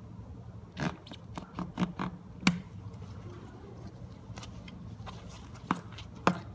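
Utility knife cutting and scraping along the gray outer jacket of armored TECK cable: a run of short scratchy scrapes and clicks in the first couple of seconds, then two sharp ticks near the end.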